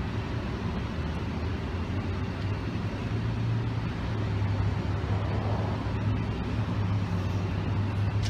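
Steady road traffic noise with a low engine hum that grows a little louder about three seconds in.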